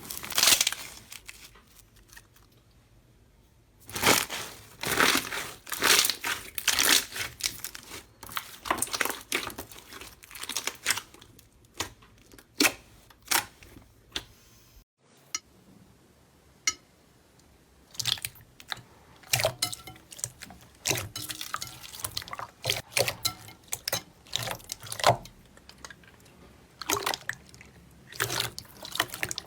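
Slime being squeezed and pressed by hand: clusters of quick, wet, sticky clicks and pops, with short pauses between handfuls. The background changes about halfway through, as from a cut to another slime clip.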